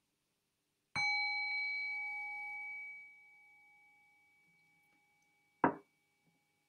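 A meditation bell struck once about a second in, ringing with a clear, steady tone that fades away over about three seconds. A short knock near the end.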